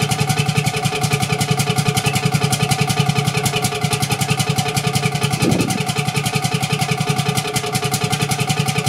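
Hatz H42 stationary diesel engine running steadily, heard at its exhaust outlets: a rapid, even exhaust beat, with one brief louder sound about halfway through.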